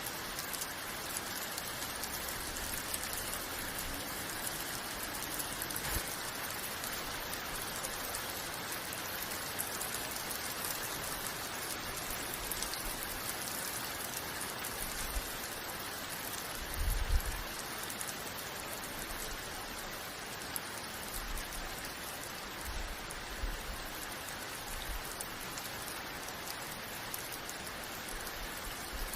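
Steady rain falling, an even hiss of drops hitting surfaces, with a brief low rumble a little past halfway.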